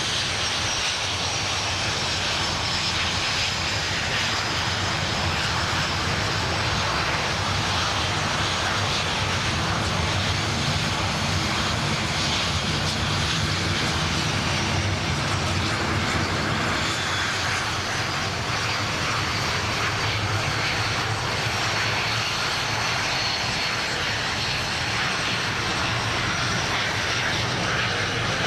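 BAE Hawk T1 jet aircraft in formation flying past: a steady, continuous jet noise with a high whine that slowly glides in pitch.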